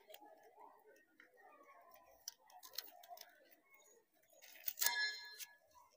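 Pruning shears working at a dragon fruit's stem: a few faint clicks, then a sharp metallic snip with a brief ring near the end.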